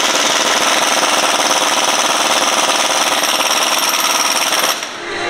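Pneumatic impact wrench hammering away at a pickup's rear-wheel lug nuts to take the wheel off, a continuous rattle that stops about five seconds in.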